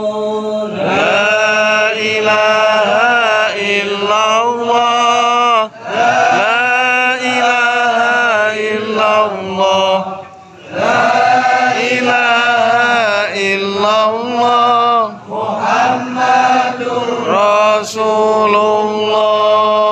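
Men's voices chanting Islamic dhikr in long melodic phrases, with short breaks between phrases.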